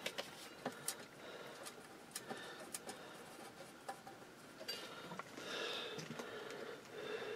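Faint, irregular small metallic clicks and taps: screws being started loosely by hand into the inverter's cover plate and heat sink.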